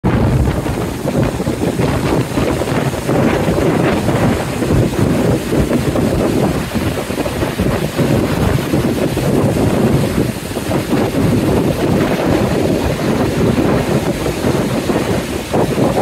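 Steady rush of the Ytri-Rangá river pouring over rocky rapids at Ægissíðufoss, with wind buffeting the microphone.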